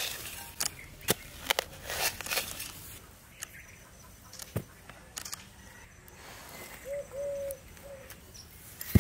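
Iron digging blade scraping and chopping into dry soil in a few quick strokes, then a brick knocking once onto the earth. A bird calls briefly about seven seconds in.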